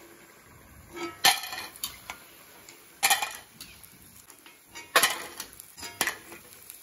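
Steel clinks: a perforated steel skimmer knocking against a steel strainer bowl as deep-fried dough snacks are tipped into it. Four sharp clanks with a short ring, a second or two apart.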